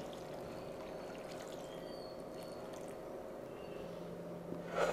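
Water poured from a plastic jug into a pan of simmering chicken soup, a steady pouring sound, with a short louder noise near the end.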